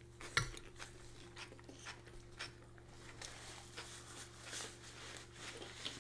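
Quiet eating at a table: scattered soft clicks and taps of cutlery and chewing, with one sharper click about half a second in, over a faint steady hum.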